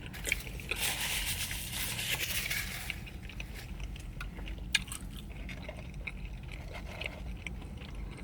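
Biting into and chewing a breaded chicken burger topped with crispy fried jalapenos: a crunchy bite for the first few seconds, then quieter chewing with scattered small clicks.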